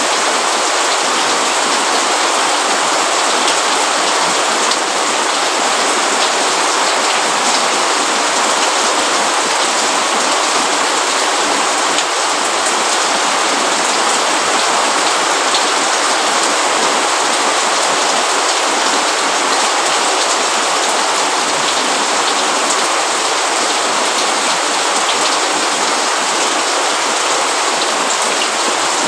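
Steady rain falling, an even hiss with individual drops ticking now and then.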